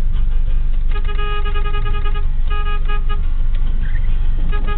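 A car horn honking in rapid repeated toots at one steady pitch, in several bursts starting about a second in, over the steady low rumble of the taxi's engine and road noise heard inside the cabin.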